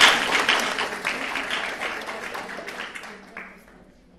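A small audience clapping in applause, loudest at first and dying away over about three seconds.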